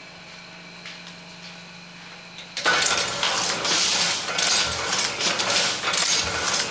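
Low steady hum, then about two and a half seconds in a printing press starts up and runs with a loud, dense mechanical clatter.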